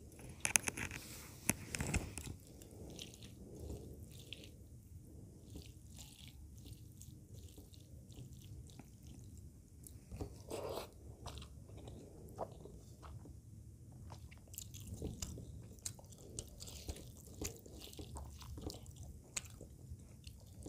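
Close-miked ASMR eating by hand: rice and fish curry gathered with the fingers and chewed, with wet mouth sounds. There is a cluster of sharp clicks in the first two seconds and smaller ones scattered throughout.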